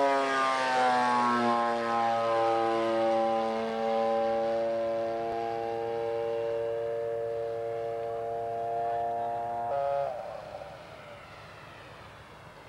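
Single-cylinder two-stroke 60 cc engine, converted from a Sachs Dolmar chainsaw, running on a large radio-controlled model biplane. Its pitch falls over the first two seconds as the model flies past and away, then holds steady. About ten seconds in the engine note drops away suddenly, leaving a faint hiss.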